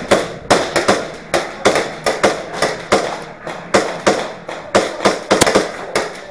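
Airsoft guns firing a rapid, uneven string of single shots, about four a second, each crack followed by a short echo.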